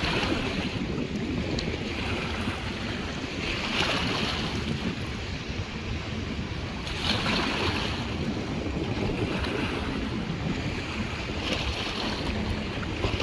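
Waterfall rushing, with wind rumbling on the microphone; the rush swells about every three to four seconds.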